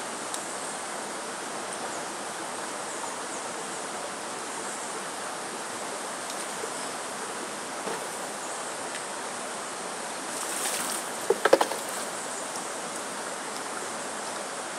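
Steady rushing hiss of running water, like a nearby stream. A short, sharp squeak cluster stands out about three-quarters of the way in.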